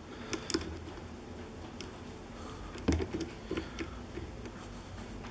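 Short hook pick working the pins of a pin-tumbler lock cylinder under tension: a few faint, scattered metallic clicks and ticks, the loudest about three seconds in.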